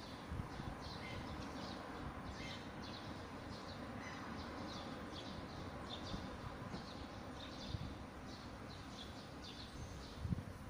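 Small songbirds chirping steadily, many short high calls a second from several birds, over a low background rush of breeze and distant noise, with a couple of brief low bumps near the end.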